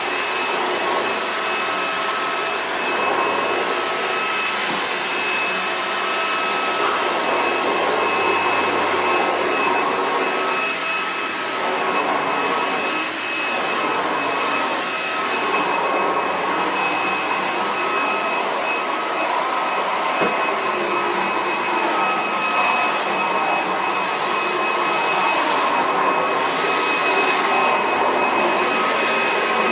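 Roidmi F8 cordless stick vacuum cleaner running steadily while vacuuming: a constant high motor whine over the noise of air being sucked in.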